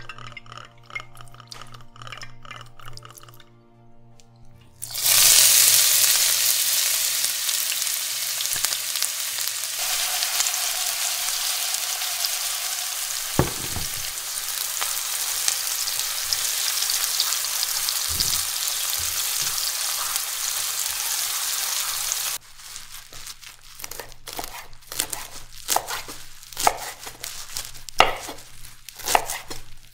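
After a few seconds of soft music, food starts sizzling loudly as it fries in a hot pan, with a couple of dull knocks from stirring. The sizzle cuts off abruptly a little past the twenty-second mark, giving way to a run of sharp knife strikes chopping on a cutting board.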